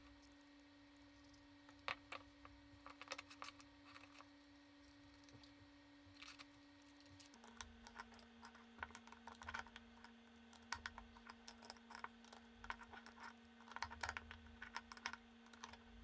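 Faint, irregular small clicks and ticks of metal hardware being handled: bolts fitted into a quick-disconnect hub and turned with a screwdriver, the nuts held with pliers. The clicks come thicker in the second half, over a faint steady hum that drops slightly in pitch about seven seconds in.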